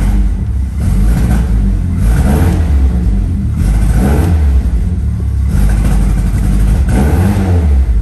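A 1971 MG Midget's 1275cc four-cylinder engine running roughly and misfiring at about 1500 to 2000 rpm, its revs surging up and down unevenly. The misfire is from a spark fault: loose spark plug leads not making good contact, plus a problem with the ignition coil.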